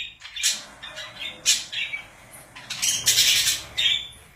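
Pet budgerigars squawking in short, harsh calls, with a longer run of squawking about three seconds in.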